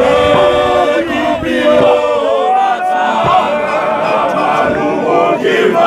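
A large group of men singing and chanting together in harmony, with a few voices sliding up and down in pitch over the others.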